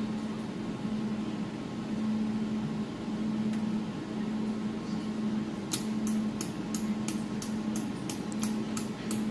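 Desktop jewelry laser welding machine running with a steady hum. From about six seconds in, a quick run of sharp ticks sets in, about three a second.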